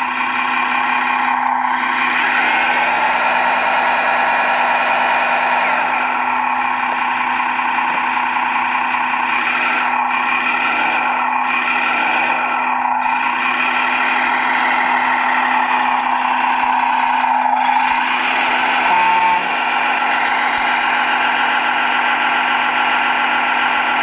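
1/14-scale Tamiya Mercedes-Benz Actros RC logging truck running as it pulls its loaded timber trailer slowly forward: a steady, continuous truck-engine sound. A short single tone sounds briefly about 19 seconds in.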